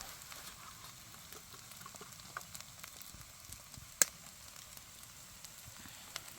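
Kimchi fried rice sizzling faintly in a pan, with scattered small clicks of a utensil and one sharp tap about four seconds in.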